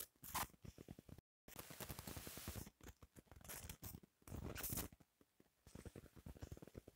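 Faint handling noise picked up by a phone's microphone: light scratching and quick clicking taps, with the sound cutting out completely for a moment about a second in.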